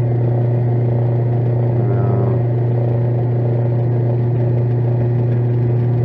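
Metal lathe running steadily with a low, even hum as it spins an antique sewing machine handwheel on a mandrel, while oiled 1500-grit paper is pressed against the rim to polish it.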